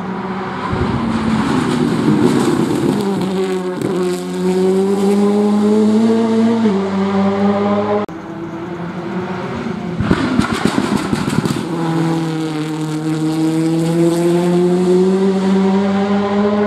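Racing car engines at high revs, in two passes. The first holds a steady note with a brief dip about four seconds in, like a gear change. After a sudden break comes a burst of rapid crackling pops, then a second engine held at high revs with its pitch slowly rising.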